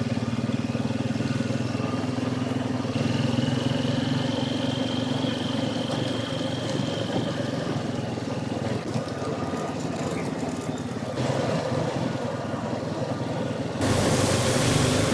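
ATV engine running steadily under way, with a thin high whine held for a few seconds in the middle. Near the end a loud rushing noise joins in.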